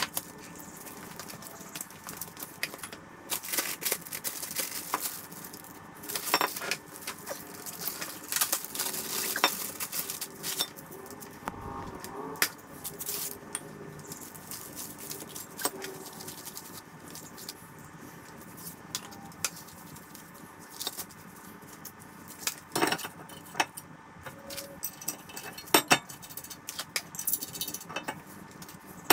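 Irregular metallic clinks and knocks from handling a new rear brake rotor and tools: the rotor is unwrapped from its plastic bag, wiped down and slid onto the wheel hub.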